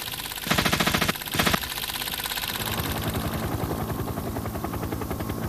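Two short, loud bursts of noise, then from about two and a half seconds in a helicopter running steadily, its rotor and engine making a fast, even pulsing over a low hum.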